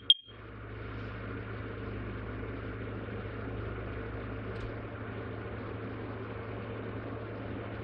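One short, high beep from a Nest Protect smoke and carbon monoxide alarm during its self-test, then a steady low hum and hiss.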